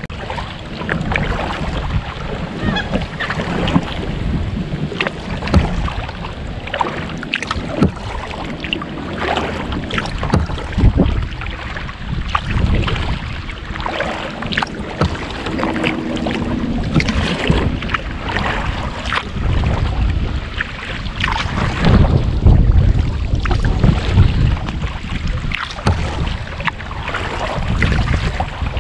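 Kayak paddle strokes splashing and dripping as the kayak moves through marsh water and lily pads, with wind gusting on the microphone.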